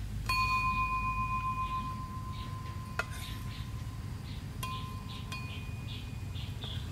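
A small metal bowl is struck and rings like a chime: one clear clink about a quarter second in that rings on for about two seconds, a sharp tick near the middle, then two more clinks in the second half that ring more briefly.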